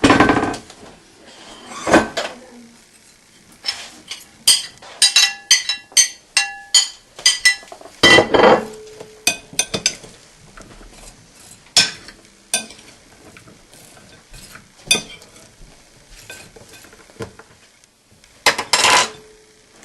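Kitchen dishes and utensils knocking and clinking, a glass baking dish among them: a run of quick ringing clinks in the middle and a few heavier knocks at irregular intervals.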